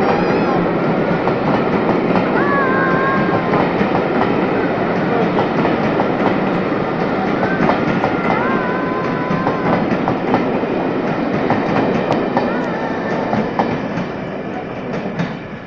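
Passenger coaches of a train hauled by two Class 37 diesel locomotives rolling past close by, with a steady rumble and wheels clattering over the rail joints. Short high squeals are heard a few times. The noise eases off in the last couple of seconds.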